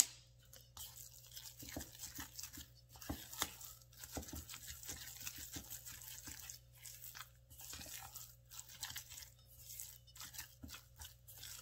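Grated cassava dough being mixed with its seasoning in a bowl: a continuous moist crackling and rustling with many small clicks, after a sharp click at the very start.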